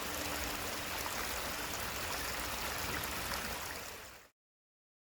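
Waterfall rushing: a steady, even wash of falling water that cuts off suddenly about four seconds in.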